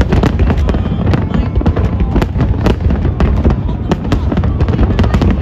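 Large aerial fireworks display: a rapid, irregular string of bangs and crackles from many shells bursting at once, over a continuous low rumble.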